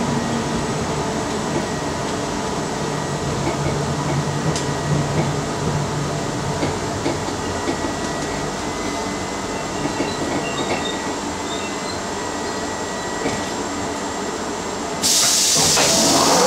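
Interior of a London Underground District Line D Stock train running on the track: a steady rumble with light clicks from the wheels and rails. About fifteen seconds in, a sudden loud hiss of air starts as the train reaches a station.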